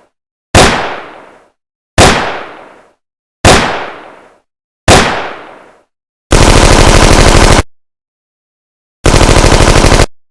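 Gunshot sound effects: four single loud shots about a second and a half apart, each with a ringing tail, then two bursts of rapid automatic fire.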